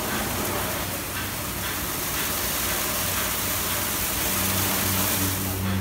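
Kärcher CBC rollover car wash in its brush wash: water spraying and rotating foam brushes sweeping over a car with a steady hiss, under a low machine hum that grows louder about four seconds in.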